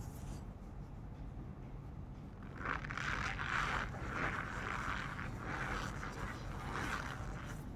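Packed cornstarch powder being squeezed and pressed, giving a run of short, creaky squeaks about one or two a second, starting about a third of the way in after a quieter stretch of soft crunching.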